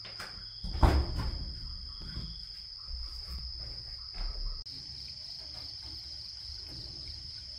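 Crickets chirring steadily in a high, even night chorus. About a second in there is a sharp clunk as a door is opened.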